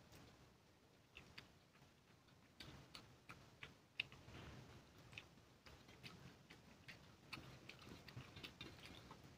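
Faint sounds of eating rice by hand from a steel plate: scattered soft clicks and smacks at irregular intervals.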